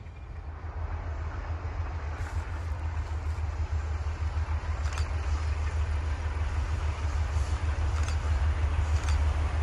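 Alco-design diesel locomotives, an MLW M420 and an Alco C420, approaching slowly, their engines' deep low rumble growing steadily louder as they come closer.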